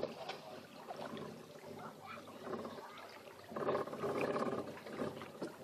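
Small boat outboard motor running steadily, swelling louder for about a second around three and a half seconds in.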